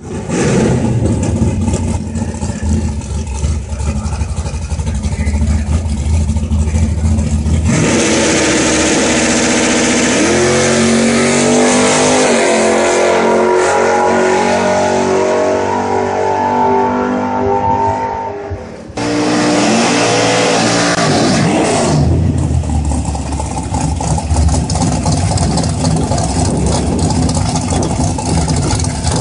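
Drag-racing muscle-car engines: a lumpy, rumbling idle, then a car launches at full throttle about a quarter of the way in, its pitch climbing and breaking at each upshift. After a brief break a second loud acceleration follows, and the last part settles back to cars idling at the starting line.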